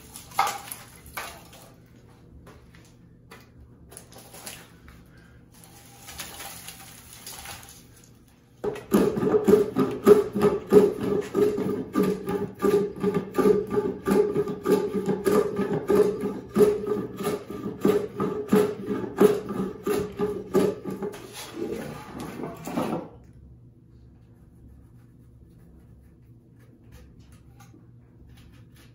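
Cloth rustling as a cover is pulled off a wooden bowl blank. Then about fourteen seconds of fast, even back-and-forth scraping strokes of a hand tool on wood at a workbench, about three strokes a second, which stop abruptly.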